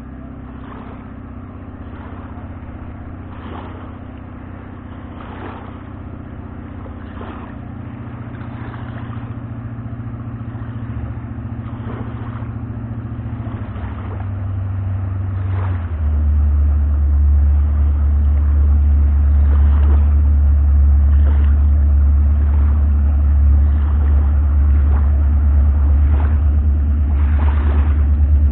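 Jet boat's inboard engine running as the boat comes closer, growing steadily louder. Its low pitch drops in steps about a quarter of the way in and again around the middle, as it throttles back. After that the deep, steady note is the loudest sound.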